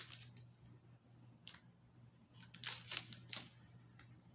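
Thin plastic wrapping crinkling in a few short spurts as a small sticky-note pad is unwrapped and handled, over a faint steady low hum.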